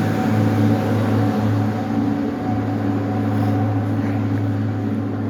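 Snowplow truck's engine running steadily with a constant low hum as it passes close by.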